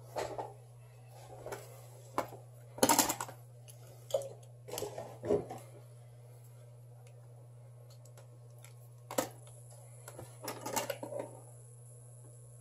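Small metal repair tools clicking and scraping against a phone's broken screen glass and frame in short, irregular bursts, the loudest about three seconds in and again near the end, over a steady low hum.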